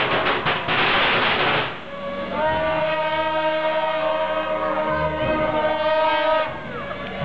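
A burst of firecracker crackle in the first second and a half. Then Chinese shawms (suona) play long held notes together, typical of a temple procession band.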